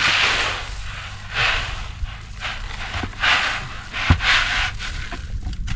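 Corn and oat feed mix poured from a plastic bucket into the wooden tray of a game feeder, the grain rushing out in about five pulses roughly a second apart.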